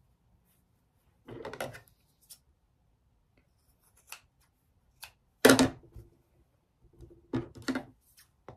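Scattered clicks and knocks of sewing scissors and fabric being handled on a sewing machine's bed, with quiet between them. The loudest is a sharp knock about five and a half seconds in.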